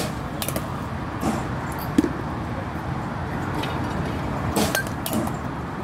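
Scattered sharp knocks of softball batting practice, balls and bats striking in the batting cages, over a steady background hum. The loudest knock comes about two seconds in, with a small cluster near the end.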